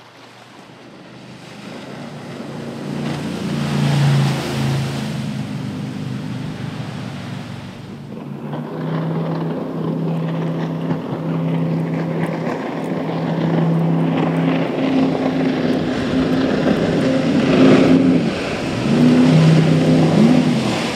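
Jet boat engine running at speed, with water rushing under the hull; it grows louder over the first few seconds and its pitch wavers near the end.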